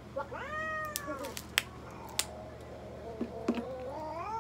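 A cat held down on an exam table gives two long, drawn-out meows, the first rising then falling in pitch, the second rising near the end. Between them come a few sharp clicks.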